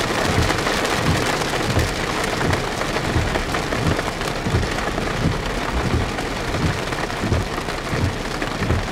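Rain striking a car's windshield and body, heard from inside the vehicle: a steady, dense patter of drops.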